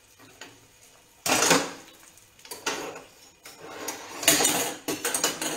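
A frying pan of oil with castagnole in it, handled on a gas hob: three loud hissing bursts, the first about a second in, a short one near the middle and the loudest a second before the end, then a quick run of clicks.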